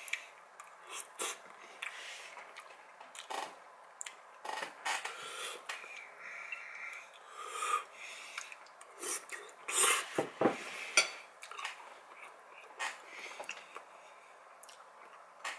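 Close-miked eating: a metal fork clinking and scraping on a ceramic bowl, chewing of pasta, and heavy breathing through the nose. The loudest cluster of clinks and mouth sounds comes about ten seconds in.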